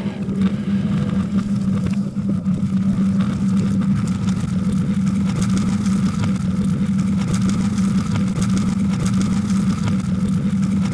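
A vehicle engine running at a steady speed, giving an unbroken low hum with road and wind noise over it.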